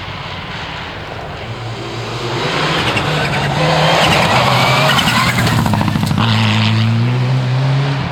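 Rally car at full throttle coming close, its engine note climbing, dropping as it shifts up a gear about six seconds in, then climbing again. The engine is loudest over the middle of the passage and fades near the end.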